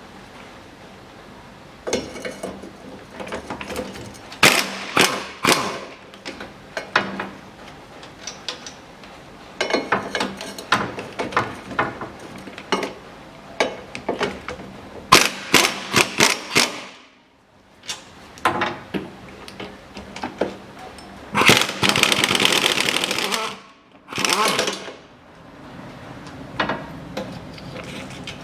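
Ratchet wrench with a 12 mm socket undoing the four bolts that hold a car's rear hub assembly: repeated bursts of rapid ratcheting clicks, with a longer continuous stretch near the end.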